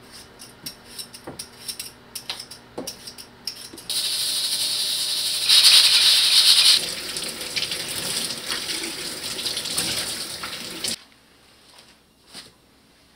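Light scraping clicks of potatoes being peeled at the sink, then a stovetop pressure cooker hissing steadily as steam vents from its valve, louder for about a second in the middle, before it cuts off suddenly.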